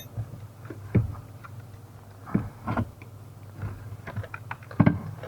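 Scattered knocks and clicks of hand tools and the steering column being handled as its mounting nuts are undone and it is pulled out, over a steady low hum. The loudest knocks come in a quick cluster near the end.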